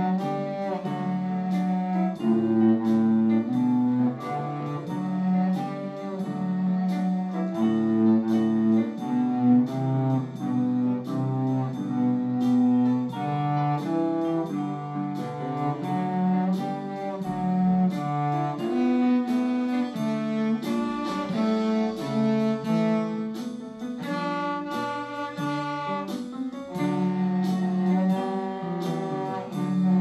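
Cello being bowed through a simple blues tune, one note after another with frequent changes of pitch. A steady beat of short ticks, about two a second, runs under the notes.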